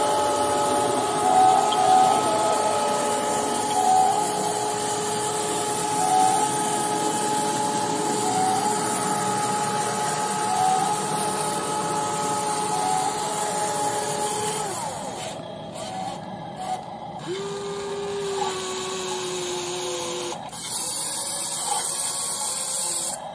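The electric gear motors of a WLtoys 16800 RC metal excavator whining as it slews and works its boom and bucket, with a small repeating chirp about every two seconds. The whine falls in pitch and stops about 15 seconds in, then a different, lower motor whine runs for about three seconds.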